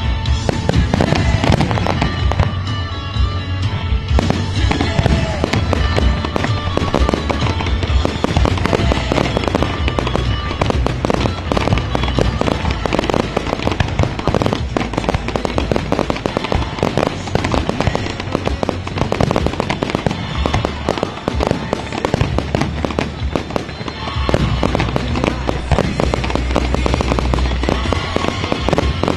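Aerial fireworks shells bursting, with many rapid bangs and crackles, heard together with music playing.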